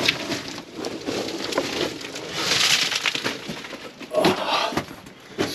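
Footsteps crunching and scuffing on loose rock and gravel, with scattered knocks from stones underfoot.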